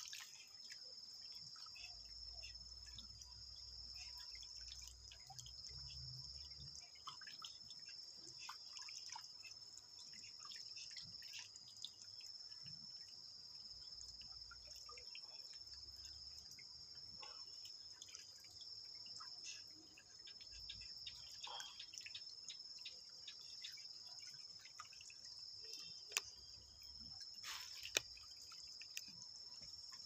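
Faint drips and small splashes of water in a shallow pool crowded with swordtail fish, over a steady high-pitched insect drone, with a couple of sharper clicks near the end.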